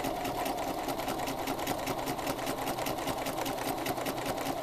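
Sewing machine running at a steady fast pace for free-motion quilting, a quick even run of needle strokes, while travel-stitching back over earlier stitches.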